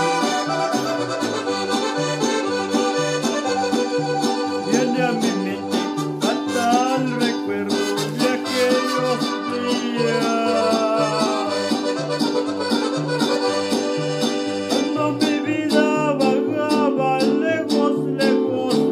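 Instrumental Mexican regional music: a held melody line over a steady, evenly bouncing bass beat.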